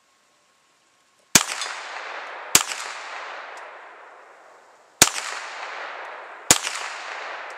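Four shots from a Ruger Mark III Hunter .22 LR pistol, in two pairs: two shots a little over a second apart, then, after a pause, two more about a second and a half apart. Each crack trails off in a long echo lasting about two seconds.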